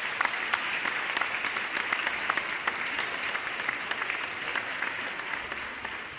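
Applause from a crowd: many people clapping together, steady and dense, beginning to fade slowly near the end.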